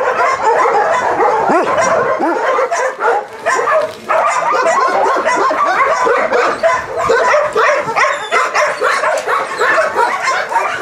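Many shelter dogs barking and yapping together in a constant, overlapping chorus.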